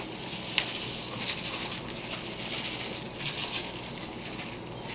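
Hands rubbing and patting dry barbecue rub into a slab of pork ribs: a soft, uneven pattering and rubbing, with two short sharp ticks in the first second.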